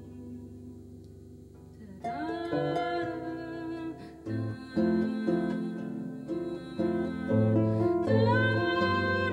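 Concert harp playing plucked notes and chords, quiet at first; about two seconds in, a louder sustained melody line comes in over it, sliding up into its notes.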